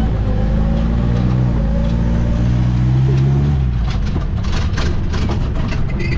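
Isuzu V-Cross pickup's engine running under load, its pitch rising slightly. About four seconds in, a quick run of sharp knocks and clatters comes in over the engine.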